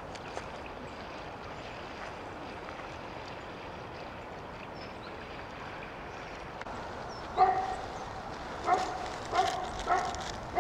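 A dog barking about five times in the second half, over a steady background noise.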